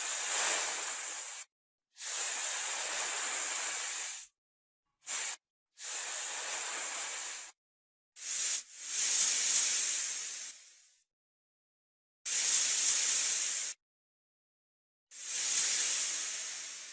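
Snake hissing in a run of separate hisses, about eight, one very short and some sharper at the onset and fading out, each cut off cleanly before the next.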